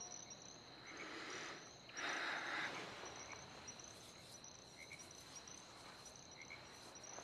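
Faint cricket chirping: a steady run of short, high, evenly repeated chirps. Soft rustles of bedsheets come about one second and two seconds in.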